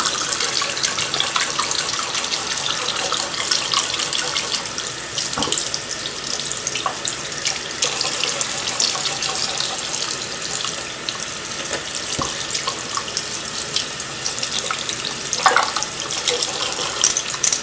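Bathroom tap running a steady thin stream into a ceramic sink basin, with hands splashing under it while rinsing makeup brushes, making small scattered splashes.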